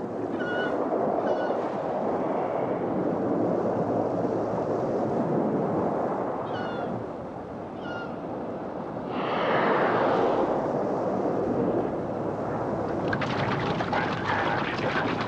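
Sea and water noise with several short, high, wavering whale calls. About nine seconds in comes a broad rushing burst, and near the end rapid splashing as caribou wade through a river.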